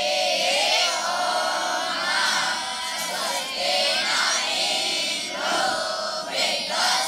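A group of boys chanting a Sanskrit prayer together in unison, in phrases with short breaks between them.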